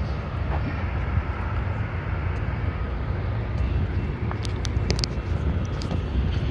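Steady low rumble of a train running out of sight, with a few light clicks about four and a half to five seconds in.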